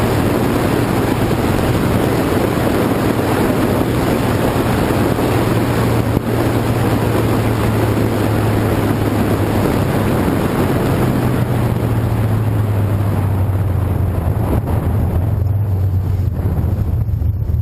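Car driving at low speed: a steady engine hum under heavy wind noise on the microphone. Over the last couple of seconds the engine note drops and the wind noise fades as the car slows.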